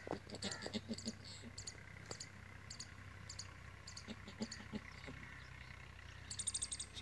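Faint, high, short chirps repeating, with a quick run of rapid chirps near the end: small creatures calling in the background.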